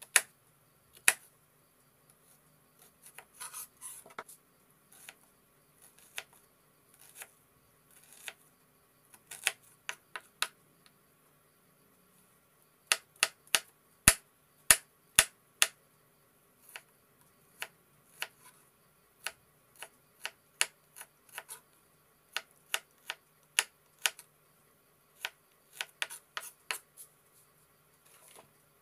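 Chef's knife chopping a red onion on a wooden cutting board: sharp, irregular taps of the blade striking the board, in short runs with pauses between.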